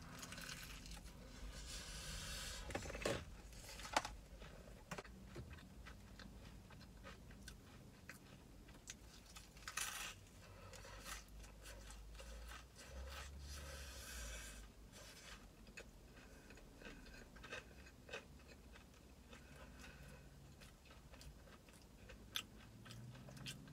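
A person biting into and chewing a crispy fried chicken sandwich, the breading crunching between quieter wet chewing, with louder crunches about two, ten and fourteen seconds in.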